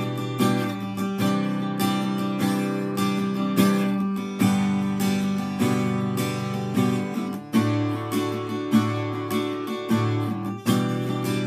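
Steel-string acoustic guitar in E standard tuning, strung with new coated strings, strummed in a steady rhythm, with the chord changing twice in the second half.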